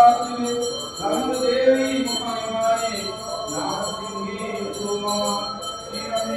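Men chanting a Sanskrit hymn to Durga, with a small bell ringing steadily behind the voices.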